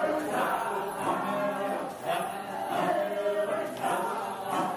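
A group of Maasai dancers chanting together in unaccompanied song, the phrases repeating about every two seconds.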